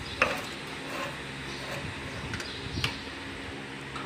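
Sharp metallic clicks and taps as steel wire and pliers knock against the fence machine's wire-straightening roller blocks, the loudest just after the start, over a steady low hum.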